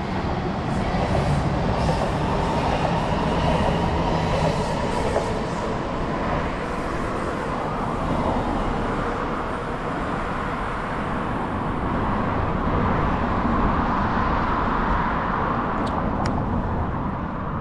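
Train running on the tracks below, a steady rolling noise with a faint whine running through it.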